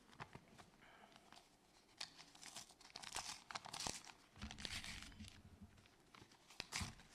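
Paper crinkling and being torn open, in faint scattered rustles and clicks.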